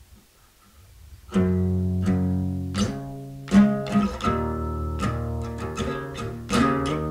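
Music led by plucked guitar-like string notes over a low bass line, starting about a second in after a near-quiet opening.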